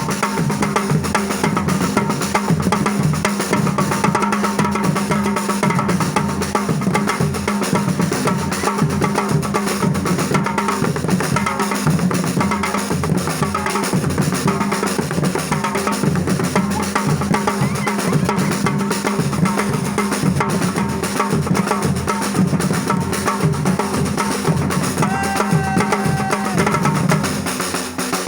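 Music driven by fast, steady drumming, with a strong bass drum and snare.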